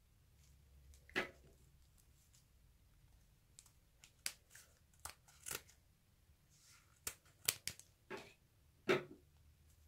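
Scissors snipping through the black net of a mesh stress ball: a string of short, sharp snips, several close together near the end.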